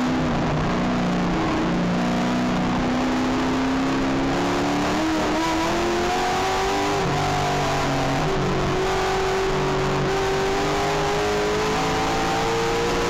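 Holden Commodore touring car's engine heard from inside the cabin at racing speed, its pitch climbing slowly, dropping sharply at a gear change about seven seconds in, then climbing again.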